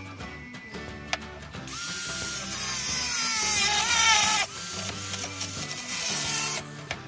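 A handheld disc grinder runs in two bursts against a steel jigsaw blade. In the first burst, about two seconds in, its whine sags in pitch under load. A shorter second burst stops abruptly near the end. Background music plays underneath.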